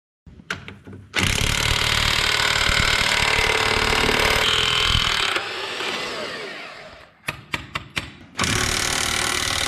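A handheld power tool running hard in two long bursts, winding down with a falling pitch in between, with a few sharp metallic clicks before each burst.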